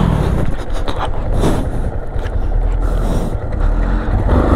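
Motorcycle engine running, a steady low rumble with a broad noise over it.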